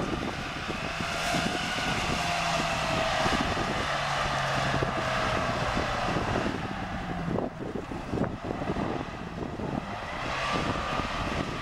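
UAZ 4x4 engine revving under heavy load, its pitch rising and falling, as the vehicle forces its way through dense dry reeds, with the reed stalks crackling and brushing against the body.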